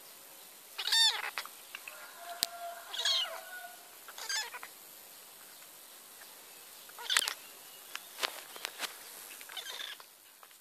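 A young kitten mews about five times, short high-pitched mews, while it is bottle-fed milk. Sharp short clicks come between the mews.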